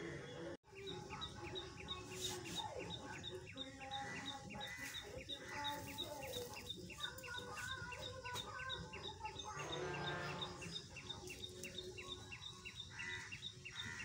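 Birds chirping, with one high chirp repeating steadily about three times a second from a couple of seconds in.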